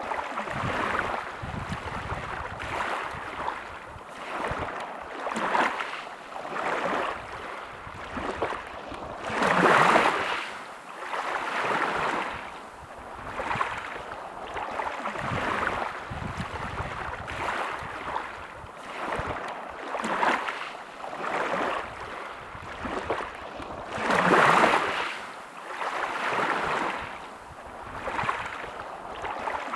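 Small sea waves washing onto a shore in repeated surges every second or two, with two larger waves breaking more loudly.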